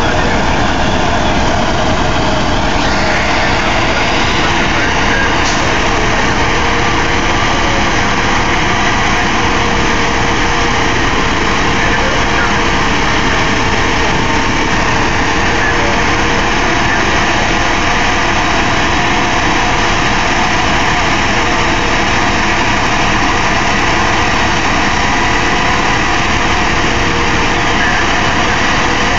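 A steady engine noise, like a motor idling, runs without a break, with faint steady tones in it.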